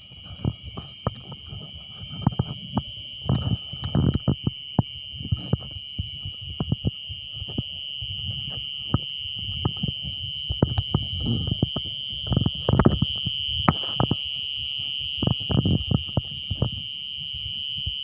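A continuous shrill trilling of insects such as crickets, held steady on one high tone, under many irregular low knocks and rustles close to the microphone.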